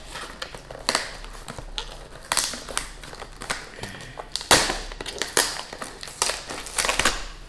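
Corrugated cardboard packaging being cut and torn open by hand: irregular rips, scrapes and crackles, the loudest about four and a half seconds in.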